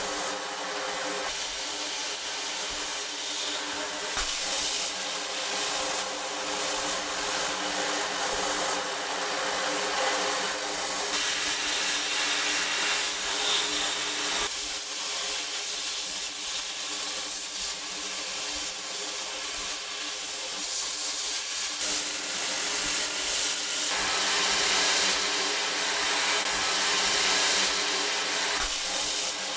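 Sandblasting cabinet's blast gun hissing steadily as compressed air drives abrasive grit against rusty metal parts, stripping the rust; the blast swells louder in stretches, about halfway through and again near the end, over a steady low hum.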